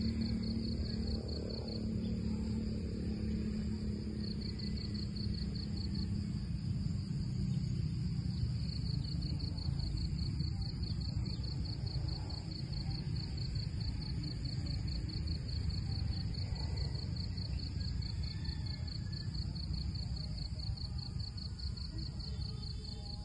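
Insects trilling steadily in a fast, even pulsing rhythm, over a low outdoor rumble.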